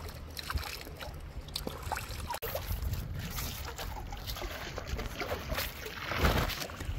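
Rushing river water with a low rumble and scattered light clicks, swelling louder about six seconds in.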